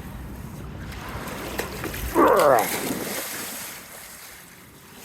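Steady wind and surf noise on the microphone. About two seconds in comes one loud, strained vocal grunt of effort as a man heaves a very big stick. The noise dies down toward the end.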